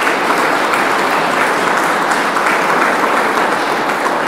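Audience applauding: many hands clapping at once, steady and loud.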